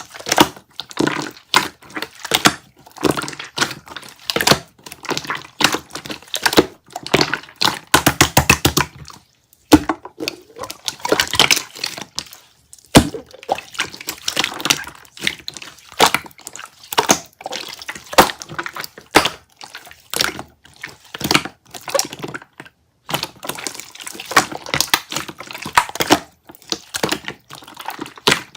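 Jiggly slime being squished and pressed by hand, giving a continual run of wet squelches, small pops and crackles, with a few brief pauses.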